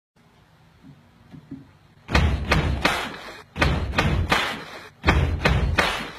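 A run of loud, heavy thuds in groups of about three with short gaps, starting about two seconds in after a near-quiet opening.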